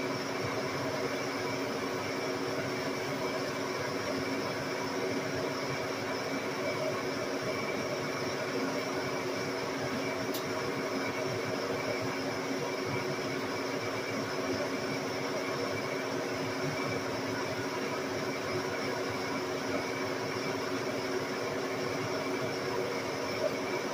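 Engine lathe running steadily while drilling through a steel chuck shank: a constant hum of motor and spindle gearing with several unchanging whining tones. There is one faint tick about ten seconds in.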